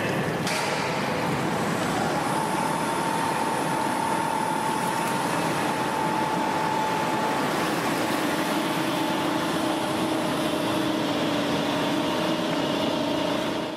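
Overhead hoist lowering a helicopter underwater egress trainer module: a steady mechanical whir and rush of noise, with faint hums that shift partway through as the drive runs.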